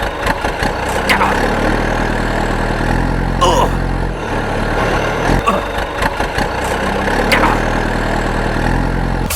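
Engine idling with a steady low hum. A few short, high chirps sound over it, about every two seconds.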